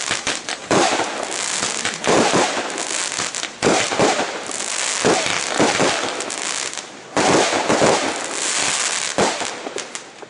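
Consumer fireworks going off: a continuous crackle and fizz, with a sharp bang every second or two.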